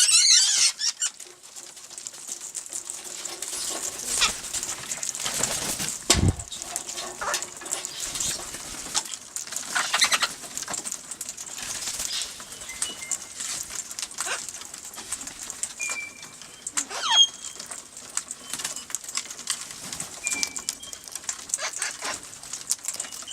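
Parrots fluttering and flapping their wings, with scattered short high chirps and one loud gliding squawk about two thirds of the way through; a dull thump comes about six seconds in.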